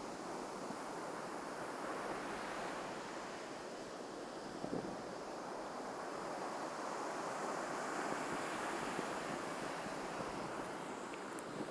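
Surf on a beach: waves breaking and washing up the sand in a steady rush that swells about two seconds in and again in the second half.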